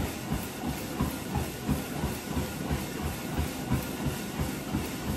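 Footfalls pounding on a running treadmill's belt and deck, about three a second, over the steady hiss and hum of the treadmill's motor and belt.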